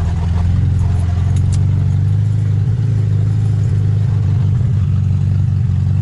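Car engine running steadily at low revs, a deep drone heard from inside the cabin, with a few light clicks about a second in.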